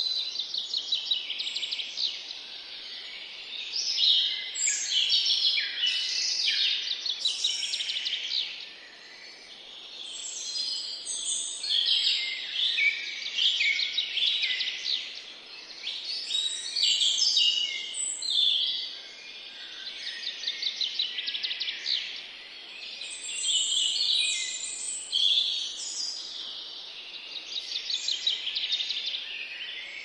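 Several songbirds singing at once: fast chirping trills and short phrases overlap, swelling and easing off every few seconds over a faint steady background hiss.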